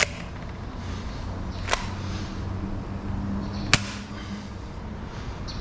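Bug-A-Salt 3.0 salt gun firing: sharp snaps about every two seconds, over a steady low hum.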